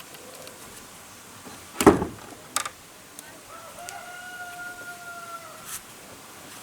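A heavy thump about two seconds in, then a sharp knock, followed by a rooster crowing: one long, even call of about two seconds that drops slightly at the end.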